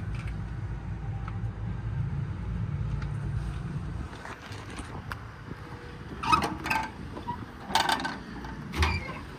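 A steady low vehicle rumble fades out about four seconds in. It is followed by several sharp metallic clunks and clicks, typical of a service-body compartment door's latch and door being worked open.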